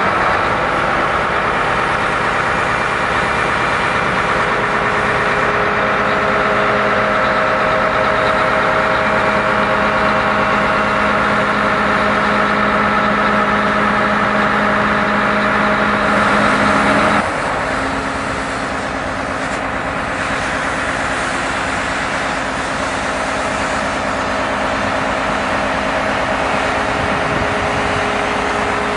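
RSP suction excavator running: a steady machine hum with several held tones. About two-thirds of the way through, it steps down a little in loudness and its tones drop lower, then runs on steadily.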